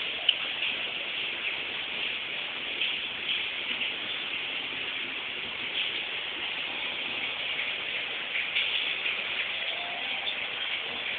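Steady hiss with faint scattered ticks, and one sharp click just after the start; no cat calls.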